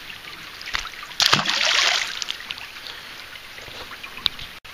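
A short splash of water about a second in, lasting under a second, over a steady faint hiss.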